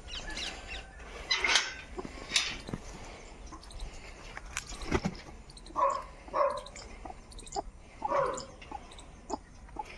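Caged chickens clucking: a few short calls, two close together about six seconds in and another a couple of seconds later, with scattered light knocks.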